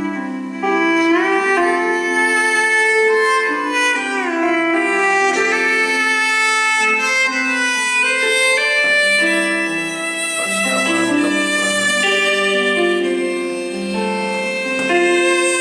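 Instrumental music with a violin-like lead melody of held notes and pitch slides, played through a JBL GO portable Bluetooth speaker in a sound test; it has almost no deep bass.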